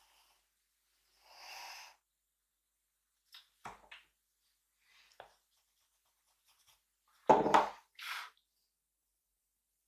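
Drawing and desk handling sounds: a short scratchy stroke on paper, a few light taps and clicks, then a louder knock about seven seconds in, followed by another brief stroke.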